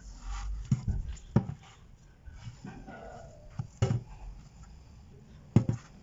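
Handling noises on a work surface: a few sharp knocks and clicks, the loudest near the end, with some light rubbing in between.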